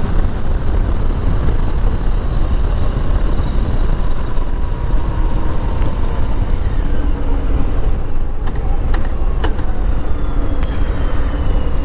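Harley-Davidson V-twin motorcycle cruising at steady road speed, its engine running under heavy wind and road noise on the rider's mic. A few short clicks come near the end.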